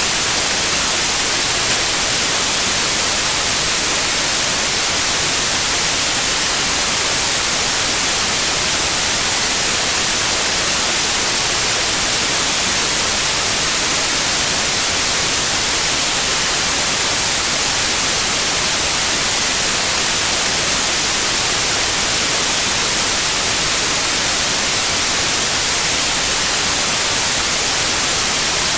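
Synthetic white noise, a steady even hiss, with a high pure tone at 9645 Hz laid over it for tinnitus sound therapy. The tone stops about 8 seconds in, leaving the noise alone, and comes back near the end.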